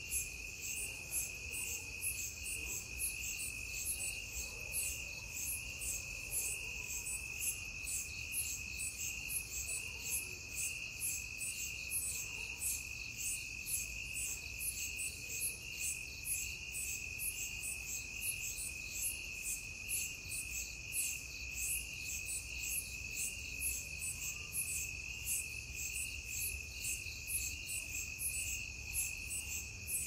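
A chorus of crickets chirping: a steady high trill runs throughout, with a higher, faster pulsing chirp repeating several times a second over it.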